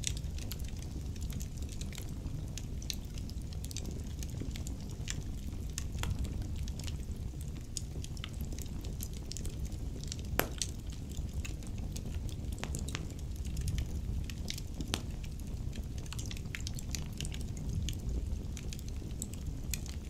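Logs burning in a brick fireplace: a steady low rumble of flames with frequent small crackles and pops, and one louder pop about ten seconds in.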